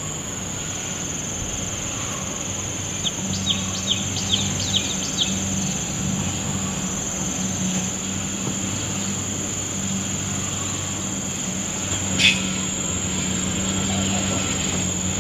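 Outdoor countryside ambience: a steady high-pitched insect drone over a low, steady motor hum. About three seconds in comes a quick run of about six bird chirps, and near the end a single sharp click.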